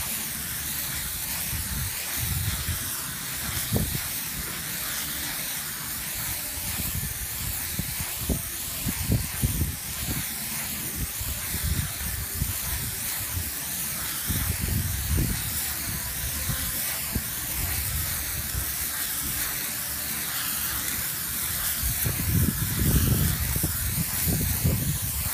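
Steady hiss of Cav-Grip III aerosol contact adhesive spraying from hose-fed spray wands. Irregular low rumbles come and go, loudest about nine seconds in and again near the end.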